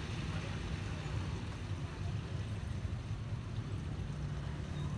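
Hot oil sizzling in a wok as egg fries and is rolled onto a bamboo skewer, over a steady low rumble.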